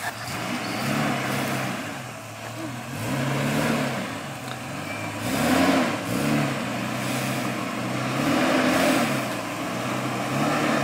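A 4WD's engine under load as it crawls up a rutted dirt track, the revs rising and falling several times as the driver feeds throttle over the ruts.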